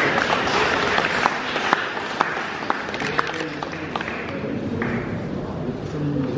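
Audience applauding, the clapping thinning out in the second half.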